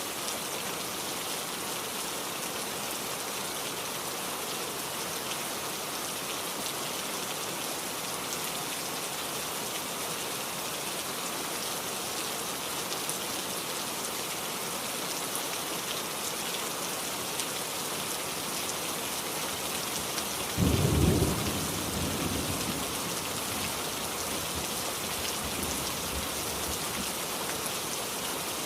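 Heavy rain falling steadily. About twenty seconds in comes a single sudden clap of thunder, the loudest thing here, which rumbles away over a few seconds.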